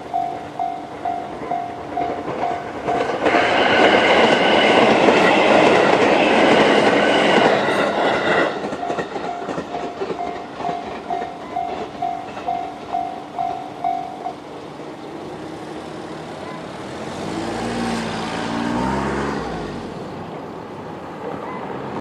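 JR-standard electronic level-crossing alarm ringing at about two strokes a second. An E751-series electric train rushes through from about 3 s to 8.5 s, loud with several high steady tones over its rumble. The alarm stops about 14 s in, and near the end a car engine rises and falls in pitch as it drives away over the crossing.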